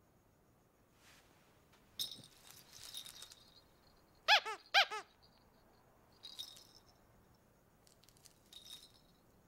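A baby's squeaky toy is squeezed twice, about half a second apart, giving two short squeaks that rise and fall in pitch. Before and after come bursts of light rattling as the toy is handled and shaken.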